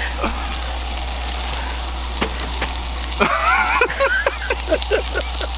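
Beef burger patties frying in a cast iron skillet on a propane camp stove: a steady sizzle. A few seconds in, a man's laughter rises over it.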